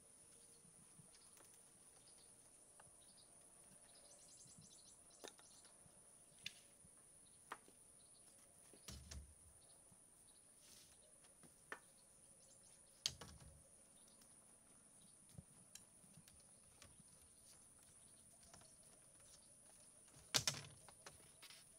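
Near silence broken by scattered light knocks and taps, a dozen or so, the loudest a short cluster near the end, over a faint steady high hiss.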